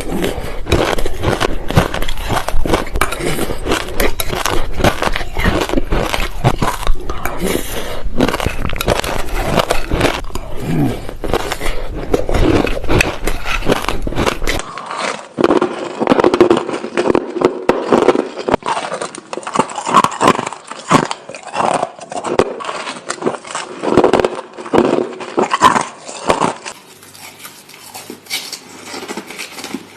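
Crunchy crushed ice being bitten and chewed close to the microphone, a dense run of cracking crunches. About halfway through the sound changes to separate bites and chews, growing quieter near the end.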